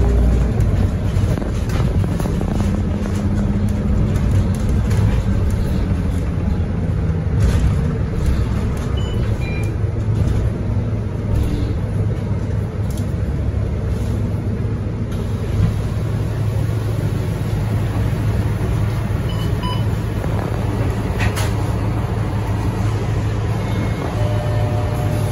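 Scania K230UB single-deck bus with its five-cylinder diesel engine running steadily as the bus drives along, heard from inside the passenger cabin near the front. Road noise comes through, with a few sharp rattles from the bus interior.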